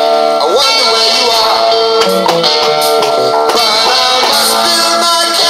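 Music: a song with guitar, playing continuously at a steady level.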